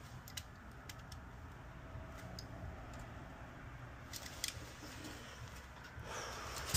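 Scattered light clicks and taps of multimeter probe tips and fingers handling a gate opener's circuit board, with a sharper click near the end, over a low steady hum.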